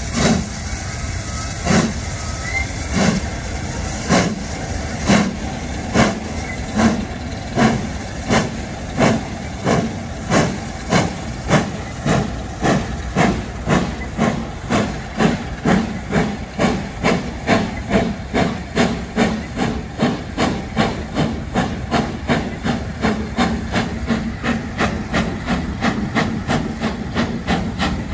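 Great Western steam locomotive pulling away under load with a passenger train: sharp exhaust beats from the chimney, about one a second at first and quickening steadily to two or three a second as it gathers speed, over a constant hiss.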